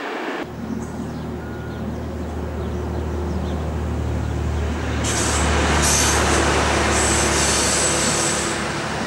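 Fiat ALn668 diesel railcar approaching, its diesel engine running with a steady low hum that grows louder. From about five seconds in there is a high-pitched metallic squeal.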